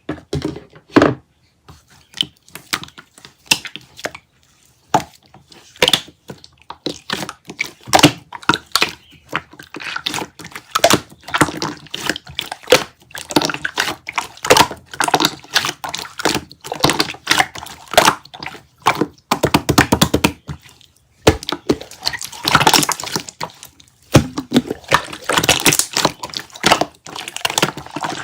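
Close-miked crisp crunching and crackling: many sharp cracks in quick succession, in irregular bursts with brief pauses.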